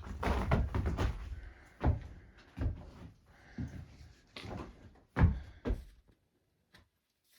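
Hiking boots stepping on the wooden floor of a trail shelter: a string of dull thuds and knocks that stop about six seconds in.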